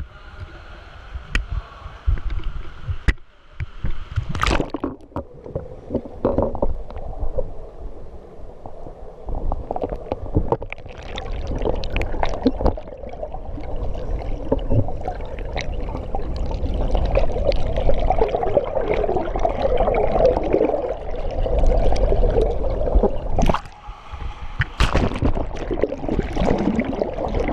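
Muffled splashing and gurgling of pool water heard from a camera under the surface as a swimmer swims freestyle past, with a few sharp clicks in the first few seconds.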